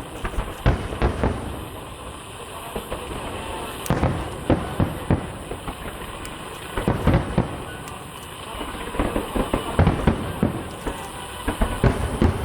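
Fireworks finale: volleys of shells bursting in rapid clusters of sharp bangs and crackles, with short lulls between the volleys.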